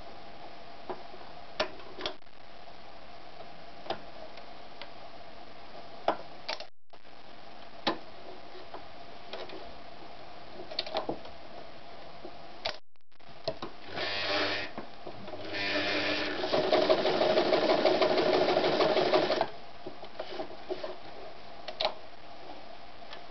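Janome Gritzner 537 sewing machine: clicks and knocks from the material being positioned under the presser foot, then the machine runs in a short burst and stitches a rapid, loud run of about four seconds through a layered test strip, ending with a few more clicks.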